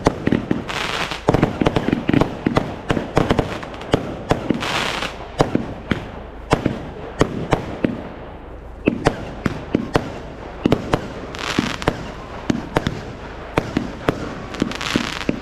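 Fireworks going off: an irregular, rapid run of sharp bangs and pops, some in quick clusters, with a few short hissing bursts among them.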